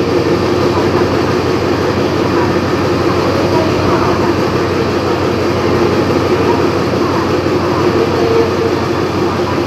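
Diesel-electric locomotive No. 4134 idling while standing at the platform: a steady engine rumble with a low hum that does not change in level.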